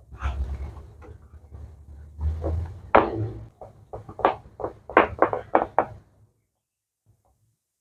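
Hands pressing and patting pizza dough into a round metal pan that sits on a wooden cutting board. A low handling rumble comes first, then about three seconds in a quick run of about ten knocks, a few each second, which stops near the end.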